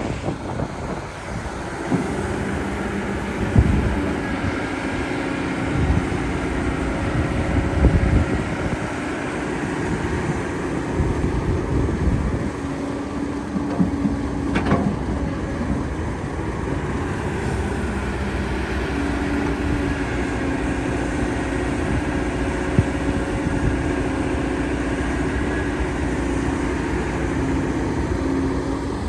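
Excavator's diesel engine running under load, its pitch shifting now and then, with a few sharp knocks on top.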